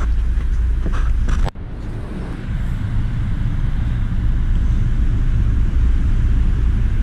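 Steady low rumble and handling noise from a camera carried while walking, with a few soft knocks, cutting out briefly about a second and a half in.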